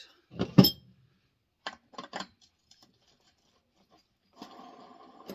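Small chainsaw parts being handled and fitted by hand: a sharp knock about half a second in, then a few lighter clicks around two seconds. A faint steady hum starts near the end.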